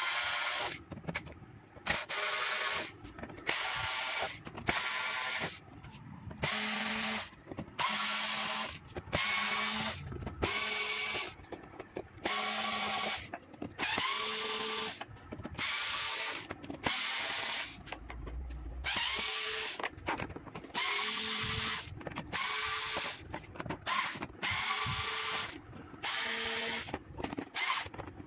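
Cordless electric screwdriver whirring in many short bursts, roughly one a second, several starting with a rising whine as the motor spins up, while it backs out the screws of an LED TV's back cover.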